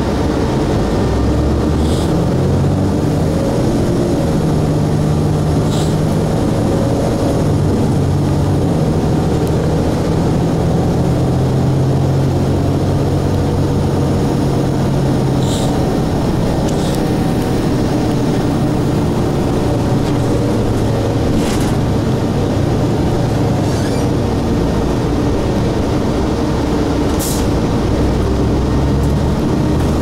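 Cummins ISC inline-six diesel and Allison automatic transmission of a 2002 Blue Bird 40-foot transit bus running under way, heard from inside the passenger cabin: a steady engine drone whose pitch rises and drops as the bus moves, with a few brief rattles.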